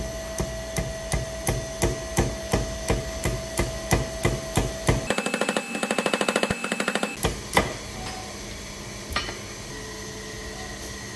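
Hammer blows driving a tool into a small metal pinion gear clamped in a vise: sharp metal-on-metal strikes about three a second, then a quicker run of lighter taps for about two seconds. One last hard blow comes at about seven and a half seconds, followed by low steady background noise.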